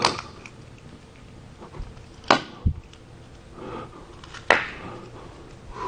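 A few sharp knocks spaced about two seconds apart, one of them a dull low thud, over a quiet background.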